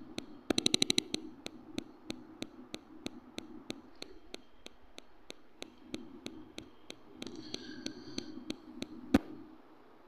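A steady train of sharp ticking clicks, about three a second, opening with a quick run of louder, faster clicks and ending with one louder click about nine seconds in.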